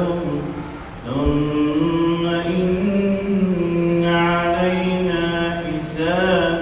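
A man's solo voice chanting Quran recitation into a microphone in long, melodically drawn-out phrases, with a brief breath about a second in.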